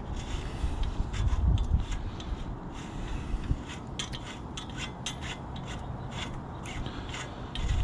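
Scraping, rubbing and light clicks of bicycle parts being handled and worked loose at the crank and bottom bracket, with a cluster of quick clicks from about three seconds in.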